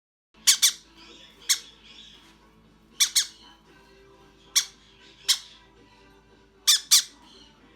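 Short, shrill squawks from a hand-reared conure chick, about nine calls, mostly in quick pairs, spaced one to two seconds apart.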